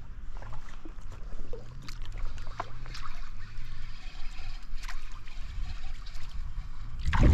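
Trout stream flowing and trickling, with wind rumbling on the microphone and scattered small splashes and knocks. A sudden louder burst comes near the end.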